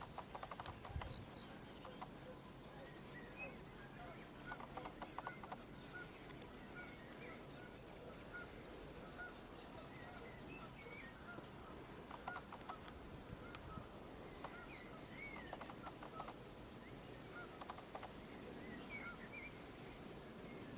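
Small birds singing in marshland: a run of short chirps and whistles with brief rattling phrases now and then, faint against a light background hiss. A low knock about a second in.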